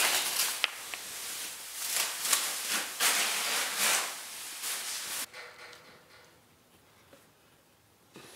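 Clear plastic sheeting rustling and crinkling as it is handled and taped up, dense and hissy for about five seconds. It then drops suddenly to faint room tone.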